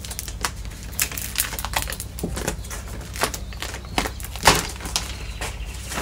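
Plastic moisture-barrier sheet being peeled off the inner door skin, crackling and crinkling in irregular bursts as it pulls away from its sticky sealant.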